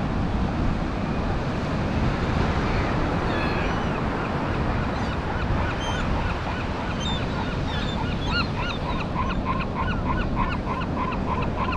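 Seagulls calling, with scattered cries at first, then from about eight seconds in a fast run of short repeated calls, about four a second. A steady low rushing noise of wind and surf runs beneath them.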